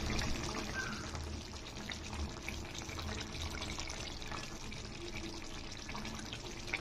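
Thick chow chow (chayote) curry simmering in a pan: a steady bubbling hiss with many small pops.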